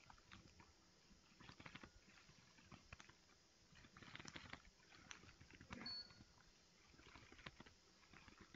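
Near silence: quiet room tone with faint, scattered small clicks and rustles.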